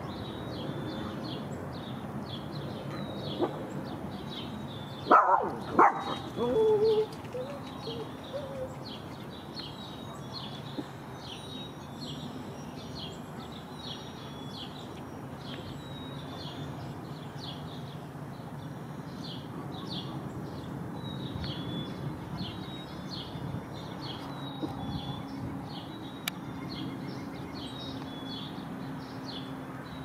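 Small songbirds chirping steadily, short calls about twice a second. A dog barks a few times about five seconds in.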